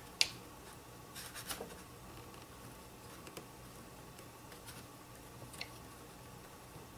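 Small metal pry tool scraping and clicking against the gear housing of a Pontiac Firebird pop-up headlight motor as it works at the glued-down access cover: a sharp click just after the start, a few light scrapes about a second in, and another faint click near the end.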